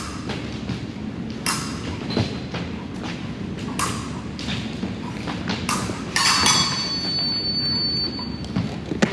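Fencers' footwork thudding and knocking on a metal piste during a bout. About six seconds in, the electric scoring apparatus sounds a steady high beep for about two seconds, signalling a touch.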